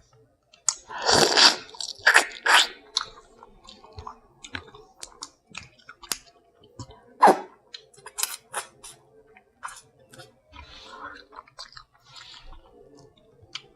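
Close-up eating of boiled crab: crunching, chewing and smacking, with many sharp clicks and cracks, the loudest bunched about a second in and again about seven seconds in.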